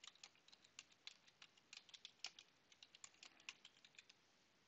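Faint computer keyboard typing: quick, irregular keystroke clicks as a command is typed.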